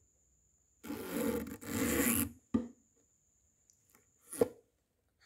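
Handling noise on a phone: fingers rub and scrape over the microphone in two scratchy bursts, then tap it sharply twice.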